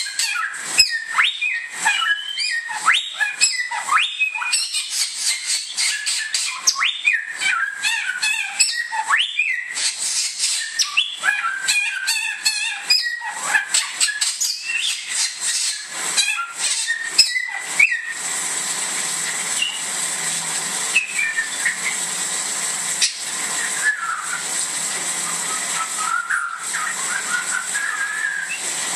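Bare-throated whistler singing loud whistled phrases, many short notes gliding up and down in pitch. About two-thirds of the way through the song largely stops and a steady hiss with a thin high whine takes over, with only a few faint notes after it.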